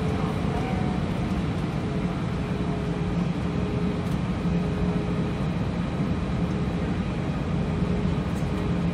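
Steady low cabin hum inside an Airbus A320 on the ground, with a faint constant tone above it.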